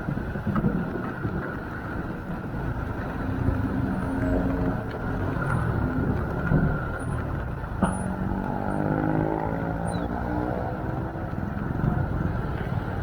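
A motor vehicle engine running over a steady rushing noise, its pitch climbing as it speeds up about eight seconds in.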